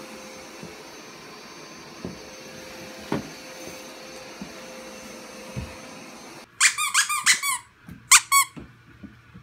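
A squeaky toy squeaked rapidly about six times, then twice more, each squeak short and high with a rising-then-falling pitch. Before that, a steady whirring hum with a few soft knocks runs for the first six seconds and cuts off suddenly.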